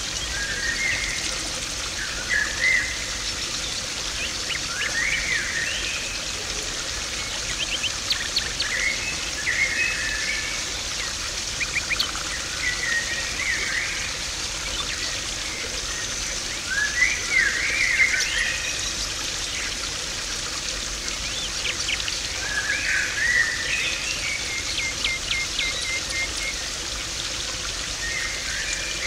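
Garden pond water splashing and trickling steadily, with small birds chirping and calling every few seconds, including a quick run of repeated short notes about 25 seconds in.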